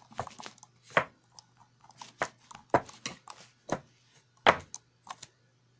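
Computer keyboard keys being struck and slapped irregularly: a dozen or so uneven clacks and knocks, the loudest about four and a half seconds in.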